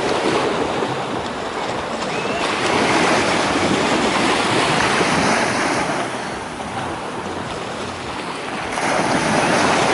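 Sea waves washing, with wind rushing over the microphone, swelling louder about three seconds in and again near the end.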